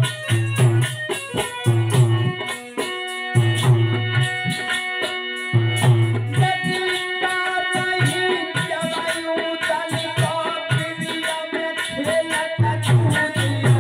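Instrumental interlude of Alha folk singing: a harmonium plays chords and a melody over the deep, rhythmic strokes of a hand drum and a jingling rattle keeping the beat.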